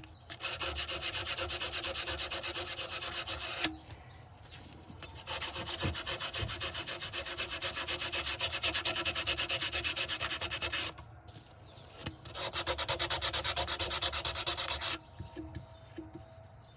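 Sandpaper, 180 grit, rubbed rapidly back and forth by hand on a knife in three spells of quick, even strokes, with short pauses between them.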